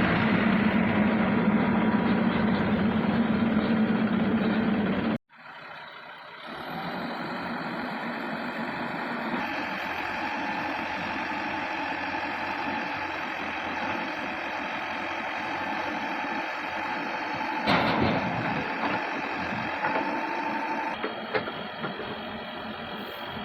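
Diesel engine of heavy earthmoving machinery running steadily and loudly. About five seconds in it cuts off abruptly, then a quieter steady engine sound continues, with a brief louder moment about two-thirds of the way through.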